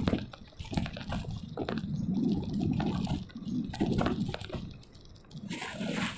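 Wind buffeting the microphone of a camera on a moving bicycle, in irregular low rumbling gusts. A brighter hiss joins near the end.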